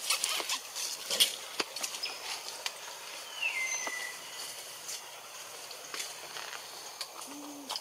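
Forest background sounds: scattered clicks and rustling crackles, with one whistled note a little under halfway through that falls and then holds.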